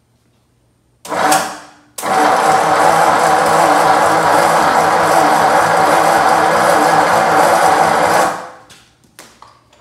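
6-volt starter motor cranking a rebuilt Ford flathead V8-60 engine: a short bump about a second in, then a steady crank of about six seconds that stops without the engine catching. The engine won't fire, which the owner puts down to a faulty carburetor that gives no good accelerator-pump squirt.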